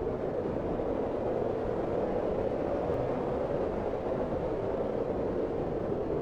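Blizzard wind blowing steadily, a low, even rush of noise with no separate gusts or other events.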